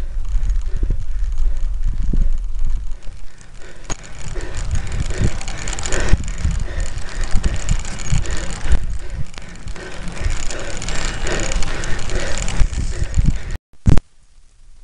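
Road bike ridden uphill over rough, patched asphalt: continuous rattling and clicking from the bike and its mount, over a low rumble of tyres on the road. Near the end the sound cuts out for a moment, then comes a single sharp knock, and after it everything is much quieter.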